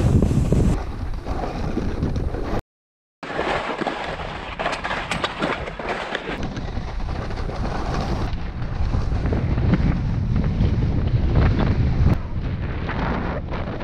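Wind rumbling and buffeting on an action camera's microphone during a ski run, with skis sliding and scraping over snow. The sound cuts out completely for about half a second about three seconds in.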